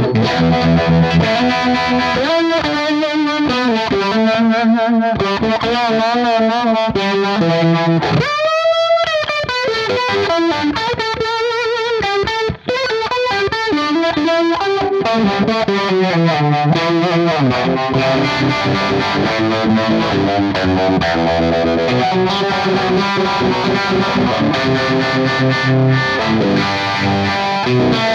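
Overdriven electric guitar playing chords and lead lines through a UAFX Flow Vintage Tremolo set to a harmonic tremolo reminiscent of a vibe, into a UAFX Lion '68 Super Lead amp pedal emulating a Marshall Plexi. The notes waver and wobble in pitch with the modulation.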